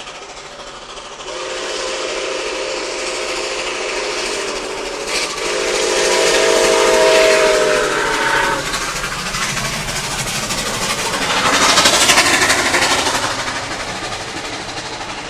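Nickel Plate Road steam locomotive blowing its chime whistle in two long blasts, the second one longer. About twelve seconds in, a loud rush of steam and exhaust swells as the locomotive passes close, then fades into the rumble of the train rolling by.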